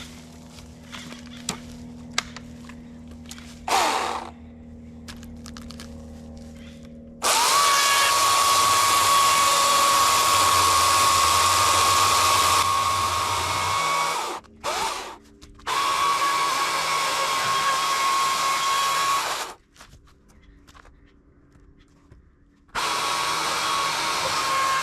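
A battery-powered leaf blower runs in three long steady blasts, each a rush of air over a steady whine. There are short pauses between the blasts, and a brief blip of the trigger comes before the first.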